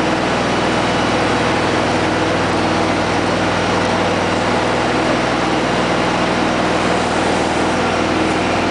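An engine idling with a steady, even low hum that never rises or falls, over a constant hiss of heavy rain.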